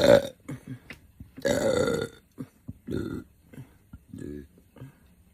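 A woman burping several times. The loudest burp comes about a second and a half in and lasts under a second, with shorter burps before and after it.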